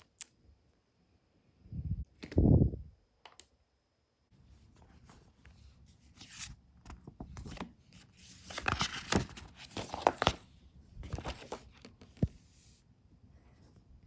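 Packaging being handled: two deep thumps about two seconds in, then packaging peeled and torn off in a run of short rustling tears, loudest around the middle.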